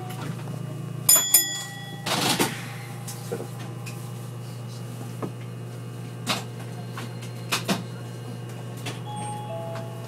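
Inside a Toei Arakawa Line tram as it moves off from a stop: a steady low hum, two sharp metallic rings about a second in, and a short burst of hiss just after. Scattered clunks follow as the tram starts rolling, and two short tones, the second lower, come near the end.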